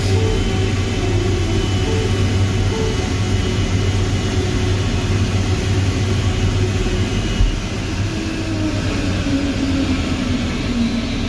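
Steady engine and cabin rumble heard from inside a slowly moving vehicle, with a strong low hum and a faint higher whine. A brief knock about seven and a half seconds in, after which the rumble is a little quieter.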